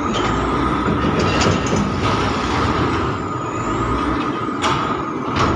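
SANY reach stacker's diesel engine running as the machine drives and turns across the container yard, with a steady whine over the engine noise. Two sharp knocks near the end.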